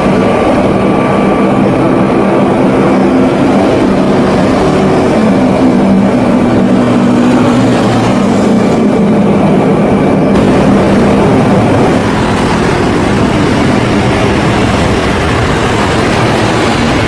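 Lockheed C-130 Hercules four-engine turboprop running loud and close, a steady engine noise with a low propeller drone. The sound changes about ten seconds in.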